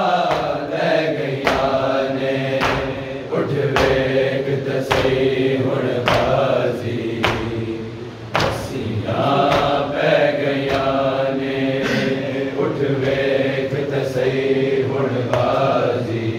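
A group of men chanting a soz, a Muharram elegy, in unison and without instruments. Under the chanting, hands strike chests in matam at a regular beat of about one slap a second.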